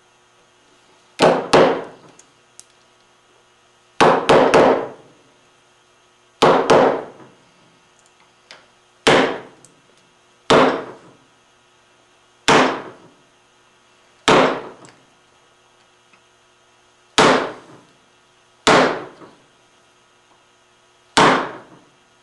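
Mallet striking a chisel, chopping out the waste between dovetails in curly maple. About a dozen sharp blows a second or two apart, some in quick doubles, each with a short ring.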